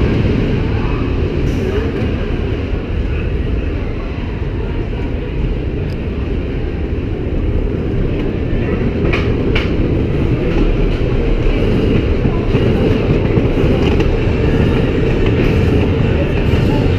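GCI wooden roller coaster train rolling slowly along the brake run into the station, its wheels rumbling and clattering steadily over the wooden track. Two short sharp clacks come about nine seconds in.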